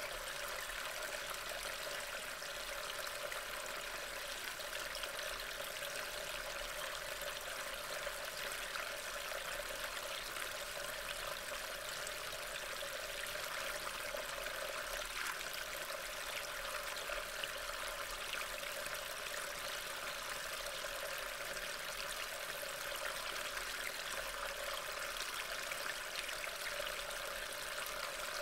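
Steady rain falling, an even hiss picked up by a trail camera's microphone.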